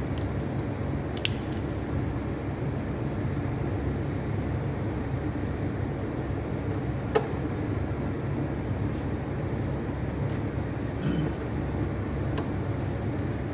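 A steady low mechanical hum, with a few sharp clicks, the loudest about halfway through.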